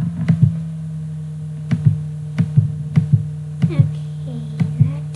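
A steady low electrical hum with sharp computer-mouse clicks, mostly in quick pairs, every half second to a second.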